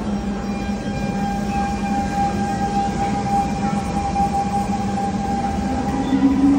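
Siemens C651 metro train's GTO-VVVF traction inverters whining as the train moves along the platform: a steady high tone over a low hum, with a second tone starting to rise in pitch near the end as the train picks up speed.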